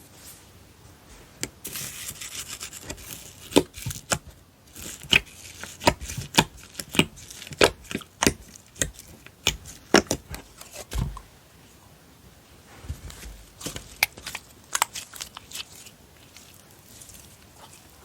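Close-up handling of a slime and its container: a couple of seconds of rustling, tearing-like noise, then a quick run of sharp clicks and pops, followed by softer rustling near the end.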